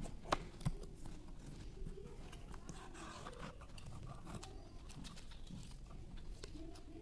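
Small cardboard charger box and its plastic tray being handled: two sharp clicks in the first second, then soft rustling and small taps as the box is opened and the tray pulled out.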